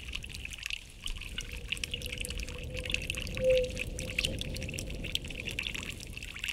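Trickling, pouring water over a thin steady held tone that swells briefly about three and a half seconds in, with a low rumble underneath.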